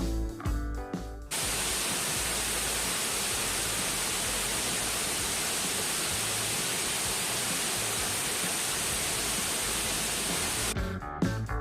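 A steady, even rushing noise, unchanging in level, which cuts in sharply after a moment of guitar music and gives way to the music again near the end.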